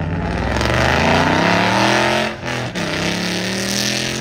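A car engine accelerating hard away. Its pitch climbs steadily, drops sharply at an upshift a little over halfway through, then climbs again.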